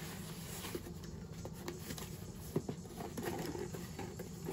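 A cardboard candy box being worked open by hand: scattered light scrapes, taps and small knocks as the flaps are pried and handled, with a single sharper knock about two and a half seconds in.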